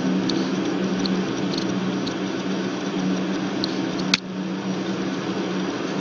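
Steady low hum with hiss in the recording, with one sharp mouse click about four seconds in.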